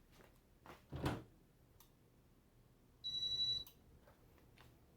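A single short electronic beep, just under a second long, about three seconds in, from the fan's InteliTouch control board acknowledging the switch to speed 6. It comes after a soft knock about a second in, over a faint low fan hum.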